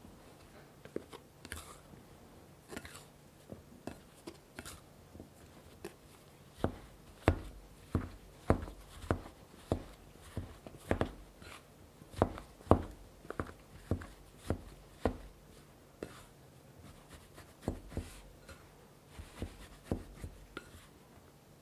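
Plastic dough scraper chopping cubes of cold butter into flour in a glass bowl: light scraping and taps at first, then a run of louder knocks about two a second as the blade strikes down through the butter, with a few more strokes near the end.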